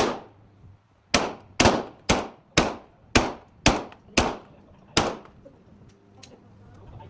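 Pistol shots fired in a quick string: nine sharp reports about half a second apart, each with a short ring of reverberation, stopping about five seconds in.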